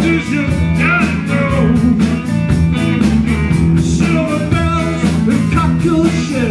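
Live rock and R&B band playing loudly, with electric bass, electric guitars and a drum kit keeping a steady beat.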